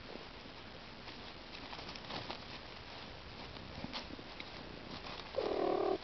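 Faint rustling and light ticking in dry leaf litter, then, near the end, a cat's short meow lasting about half a second.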